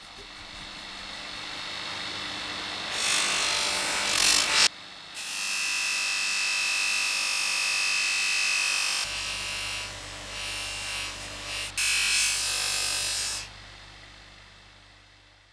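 Small power tool working on the rusty steel of an old pocket knife, with loud bursts of scraping noise and a steady high whine in the middle; the sound fades in at the start and out near the end.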